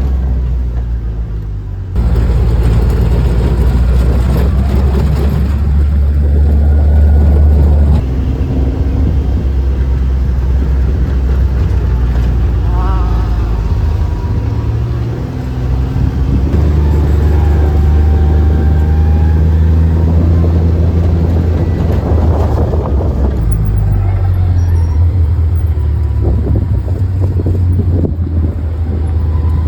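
Steady low rumble of a moving motor vehicle, heard in several short clips joined with abrupt cuts.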